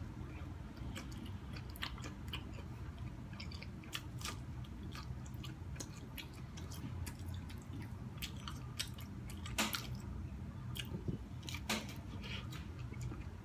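A person biting kernels off a corn cob and chewing, with quiet, irregular crunchy clicks and two sharper clicks in the second half.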